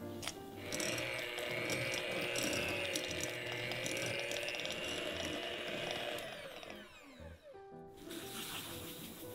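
Electric hand mixer running at medium speed, its beaters creaming softened butter in a glass bowl. It starts about a second in with a steady motor whine, then is switched off about six seconds in, and the whine falls away as the motor winds down.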